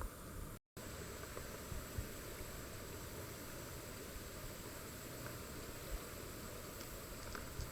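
Faint, steady background hiss with no distinct sounds in it.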